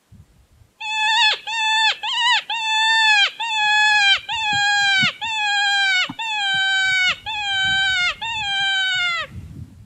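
Predator call sounding a high-pitched distress cry to draw in coyotes: about eleven wavering, bleat-like cries in quick succession, each dropping in pitch at its end, starting about a second in and stopping shortly before the end.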